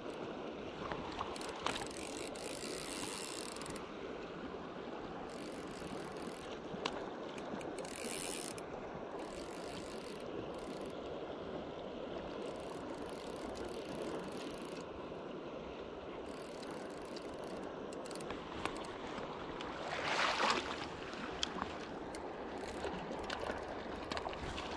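Fly reel's click-and-pawl drag clicking in bursts while a hooked brown trout is played, over the steady rush of river current. A short, louder burst of noise comes about twenty seconds in.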